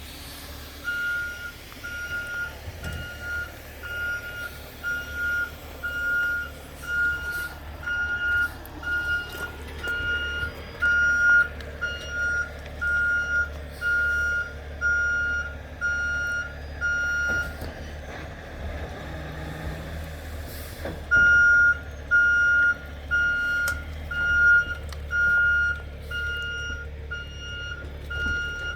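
Heavy tow truck's backup alarm beeping about once a second as it reverses, over the steady low running of its engine. The beeping stops for a few seconds past the middle, then starts again.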